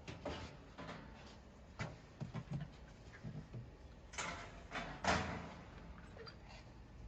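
Faint scattered clicks, taps and rustles of hands connecting power cables at the machine's terminals, with two longer breath-like rushes about four and five seconds in.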